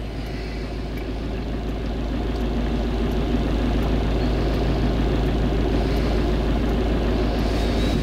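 A car engine idling steadily, heard from inside the cabin, rising a little in level over the first few seconds and then holding.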